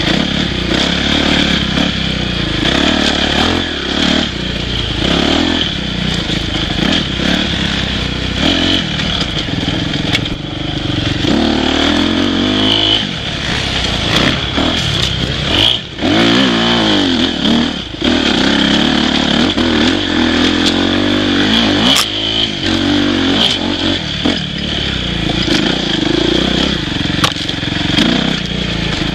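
Dirt bike engine running hard on a rough forest single-track, the revs rising and falling with the throttle and dropping off briefly about halfway through. Knocks and clatter from the bike come over the bumps.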